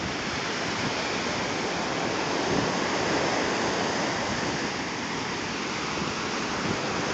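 Steady rush of ocean surf washing onto a sandy beach.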